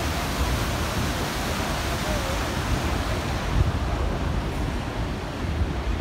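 Steady rush of whitewater rapids in the Arkansas River, over a constant low rumble from the moving train and wind on the microphone. The upper hiss thins out a few seconds in.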